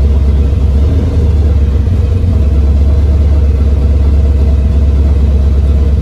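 Supercharged big-block Chevy V8 with fuel injection running steadily with a low, even rumble and no revving.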